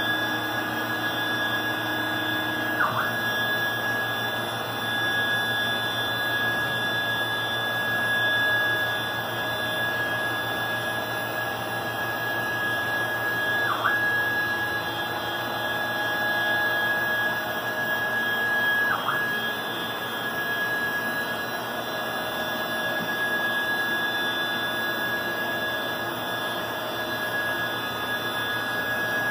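CNC router table running a program: the 10 hp tool-changer spindle gives a steady high whine that sags briefly and recovers four times, over the steady rush of the 10 hp vacuum hold-down pump and a large dust collector.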